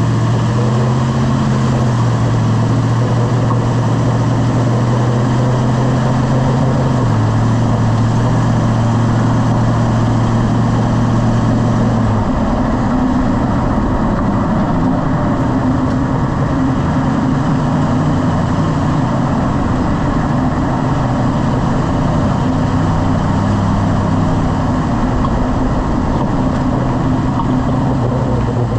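Lifted truck running and driving, with steady engine and road noise. The engine tone drops about seven seconds in and fades out around twelve seconds, as the truck slows or changes gear.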